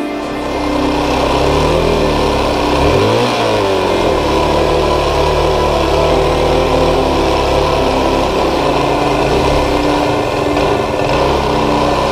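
2009 KTM 530 EXC's single-cylinder four-stroke engine running, revving up and back down about two to three seconds in, then running steadily.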